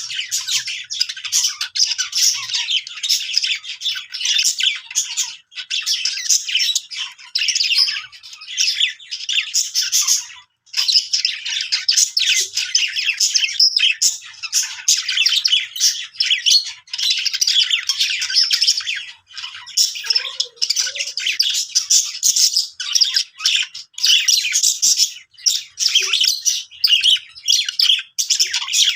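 Budgerigars chirping continuously in a dense run of rapid, high chirps and warbles, broken by a couple of brief pauses.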